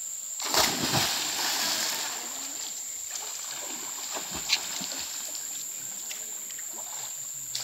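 A burst of water splashing about half a second in, then fading, with a sharp click a few seconds later, over a steady high-pitched insect drone.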